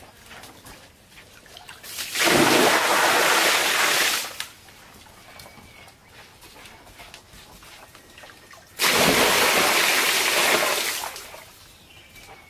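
Water splashing in two loud rushes, each about two seconds long and starting suddenly, about six seconds apart.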